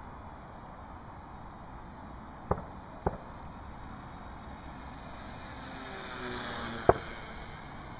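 Electric RC model plane (ParkZone Stinson SR Reliant) passing overhead, the buzz of its motor and propeller swelling and fading near the end, over a steady background hiss. Three sharp knocks are the loudest sounds: two close together a few seconds in and one near the end.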